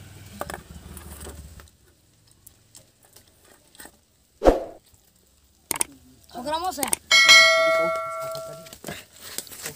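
A single bell-like ding from a subscribe-button animation sound effect, ringing for about a second and a half and fading out. It comes just after a sharp click and a brief voice.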